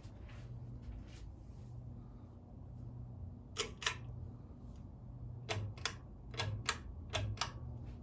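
Hampton Bay Cameron II Plus ceiling fan, with a 188x15mm motor, running with a steady low motor hum. Over the hum come four pairs of sharp clicks, some with a low thud, in the second half.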